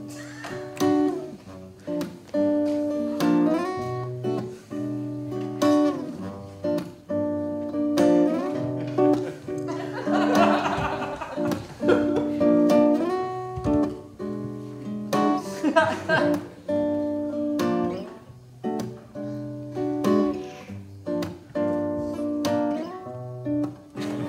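Acoustic guitar music with strummed chords and a steady swing beat.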